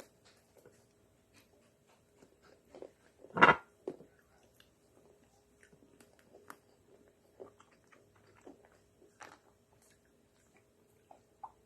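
Close-up eating of a Magnum ice cream bar: a loud crack of the chocolate coating being bitten about three and a half seconds in, with soft chewing and small mouth clicks around it.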